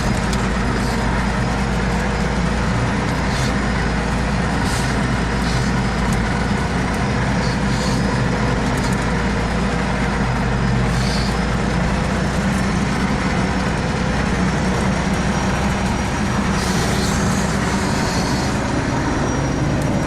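Vehicle engine running steadily under way on a rough forest track, with scattered short knocks and rattles.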